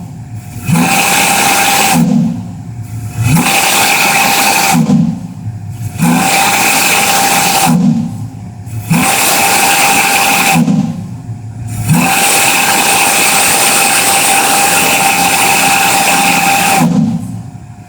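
12-inch three-note single-bell Star Brass chime whistle blowing four short blasts of about a second and a half each, then one long blast of about five seconds. It gives a steady chord over a hiss.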